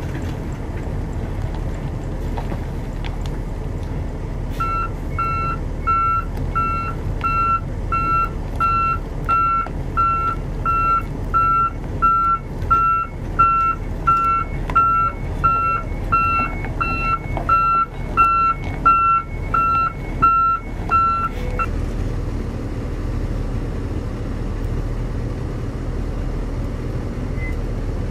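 Mitsubishi Fuso self-loader truck's reversing alarm beeping about one and a half times a second over the steady running of its diesel engine as it backs up. The beeping starts about five seconds in and stops a few seconds before the end, leaving the engine running.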